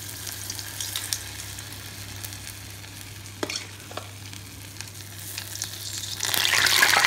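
Spoonfuls of urad dal vada batter frying and sizzling in hot oil in an iron kadhai at medium heat. Two short clicks come in the middle, a spoon against the steel batter bowl. Near the end the sizzle jumps suddenly louder as a fresh spoonful of batter drops into the oil.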